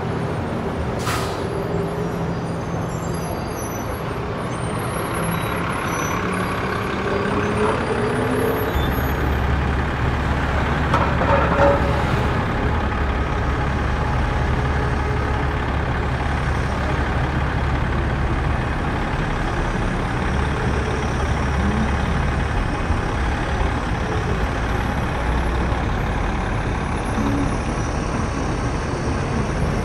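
Engine sound from radio-controlled model trucks, heard over steady hall noise. A rising rev comes about six to eight seconds in, then a low steady drone sets in and holds for about fourteen seconds.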